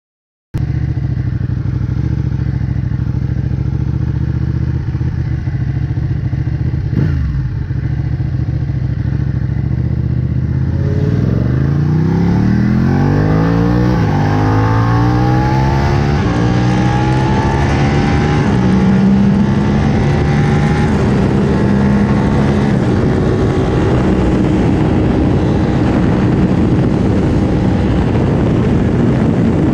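A 2017 Ducati Panigale 1299S's 1285 cc Superquadro V-twin, breathing through a full Akrapovic titanium exhaust, runs steadily at low revs. About eleven seconds in it pulls away and accelerates up through the gears in a series of rising sweeps. It then settles into steady running at speed, with wind rushing over the bike.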